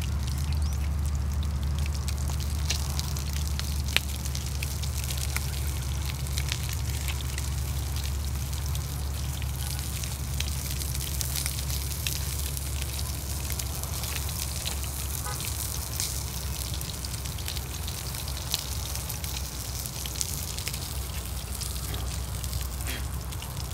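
Fish sizzling in a pan over a small wood fire, a steady crackling hiss with scattered sharp pops, over a steady low rumble.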